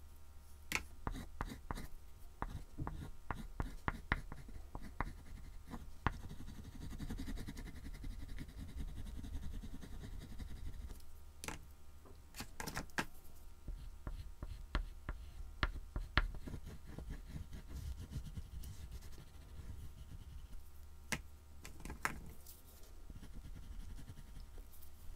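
Soft oil pastel stick rubbing and scraping on a black-painted MDF board, with a run of steady scribbling strokes in the middle as an area is filled in. Scattered sharp taps and clicks as the stick meets the board come in clusters, and a low hum runs underneath.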